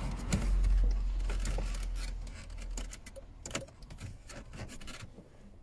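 Hands pressing the plastic dash trim around a double-DIN head unit home in a Honda Civic Type R FN2's dashboard: scattered small clicks and knocks of plastic. A low rumble runs under the first two seconds or so.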